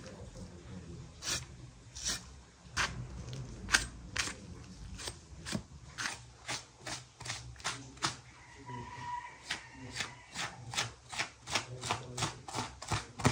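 A knife slicing through the fat and membrane of a raw beef leg in short, crisp strokes while the fat is pulled away, the cuts coming faster and more evenly in the second half.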